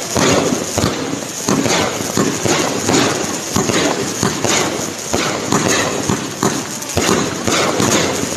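Fireworks going off in rapid succession: many sharp bangs and crackles at an irregular pace, several a second.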